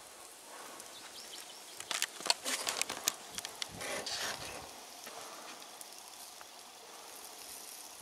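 Shashlik on metal skewers sizzling over hot charcoal in a mangal, with a burst of sharp crackles and pops about two seconds in over a faint steady hiss.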